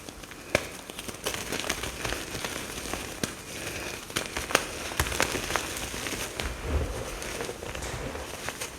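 Pressed mica powder bombs being crushed and crumbled: a dense, continuous crunching with many sharp crackles and clicks.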